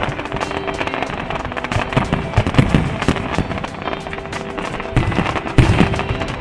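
Aerial fireworks crackling and popping in rapid succession, with deeper booms about two and a half seconds in and again around five to five and a half seconds, over steady background music.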